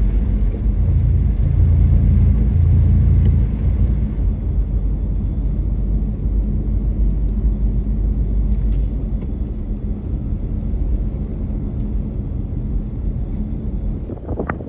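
Low, steady rumble of a car driving on a snowy road, louder from about one second in, easing after three and a half seconds, then slowly fading.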